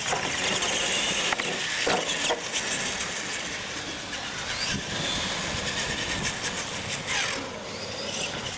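Electric R/C monster trucks launching and accelerating hard on asphalt. Their motors and geartrains whine under the hiss of the big tyres on the pavement, with the whine rising in pitch in places, and the sound eases off about seven seconds in.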